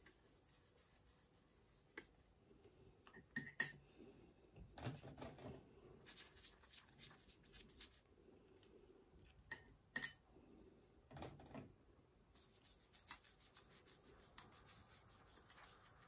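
Faint scrubbing of a paintbrush mixing watercolour paint in a palette well, with a few light clicks and taps.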